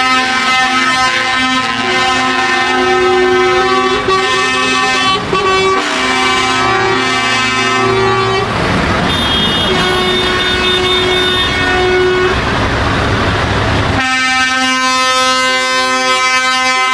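Truck air horns sounding in long held chords, several horns at once, with the pitches changing every few seconds. From about 8 to 14 seconds in, a rougher rushing noise with a low rumble sounds under them.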